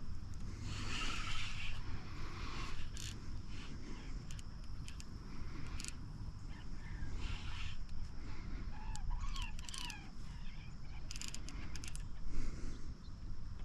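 Outdoor ambience on the water: a steady low rumble with scattered clicks and knocks, and a short wavering bird call about nine seconds in.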